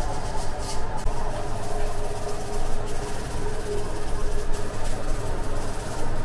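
Steady low mechanical rumble with a constant hum, typical of bakery machinery running.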